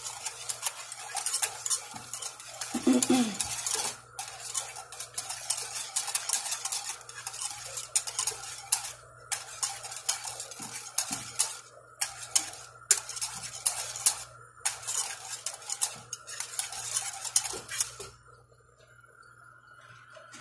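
Wire whisk stirring béchamel sauce in a metal saucepan on the stove, its wires scraping and clicking steadily against the pan, with a short break about four seconds in. The whisking stops about two seconds before the end.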